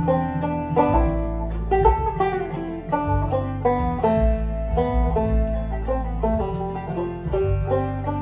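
Deering Clawgrass 2 five-string banjo played clawhammer style, a quick run of plucked notes over a computer-generated backing track with steady low held bass notes.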